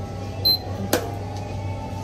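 A short high electronic beep from a handheld restaurant order terminal as the order is keyed in, followed about half a second later by a sharp click.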